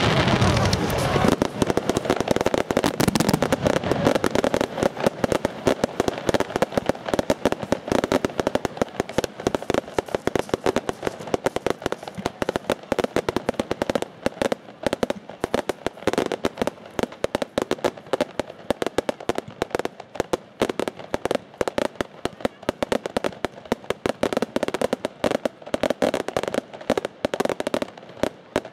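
Aerial fireworks: heavy bangs in the first few seconds, then fast, dense crackling of many small cracks.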